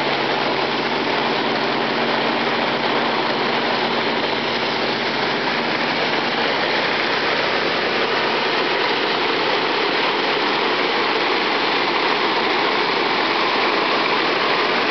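Muddy floodwater rushing fast through an overflowing road ditch and culverts, a steady churning roar. A low steady hum runs under it for about the first half.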